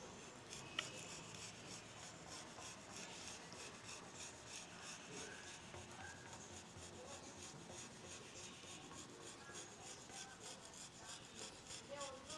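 Faint scraping of a plastic-handled glass scraper over a wet, soapy glass pane, in quick repeated strokes.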